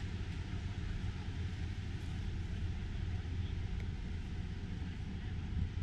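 Steady droning hum of a camera drone's motors and propellers, with a low rumble underneath.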